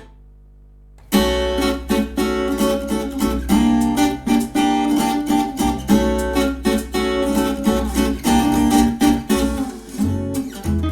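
A music track played back through an RCF ART series loudspeaker as a sound test: strummed acoustic guitar over a steady bass line, starting about a second in after a short quiet gap.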